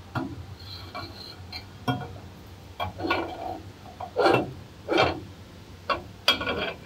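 Steel axle parts clinking and knocking as they are handled at the axle shaft's flange end: a series of short, sharp metallic clanks about a second apart, some with a brief ring.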